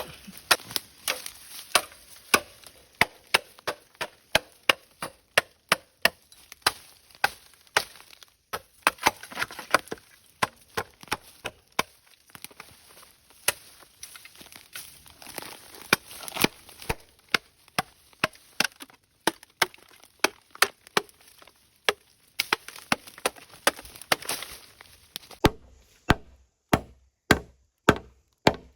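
Chopping bamboo with a blade: steady, sharp blows, about two a second, going on without pause.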